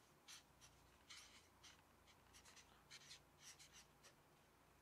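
Marker pen writing on lined notebook paper: a series of faint, short scratching strokes of the tip across the page.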